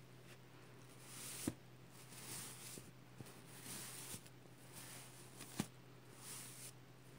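Hand brushing back and forth across a reversible sequin pillow cover, flipping the sequins: a series of faint, soft swishing strokes. Two sharp clicks stand out, about a second and a half in and again about four seconds later.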